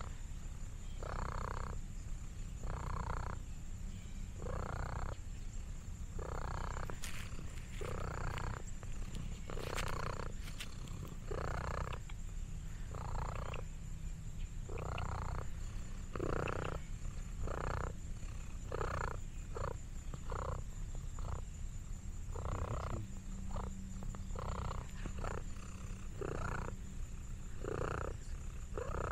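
Orange tabby cat purring close to the microphone: a continuous low rumble with regular swells, roughly one every second or so, as it breathes in and out.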